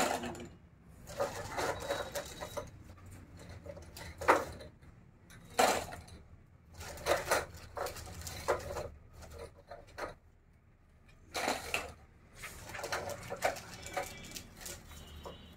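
Plumbing fittings and hardware clattering in irregular bursts as they are handled and packed.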